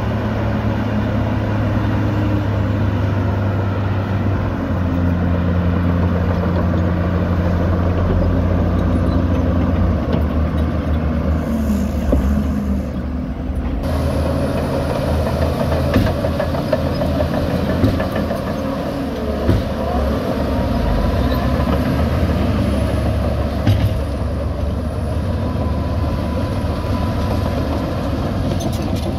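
Shantui DH17 C2 crawler bulldozer's diesel engine running under load as it pushes dirt, its note shifting a few times. A few sharp knocks in the second half.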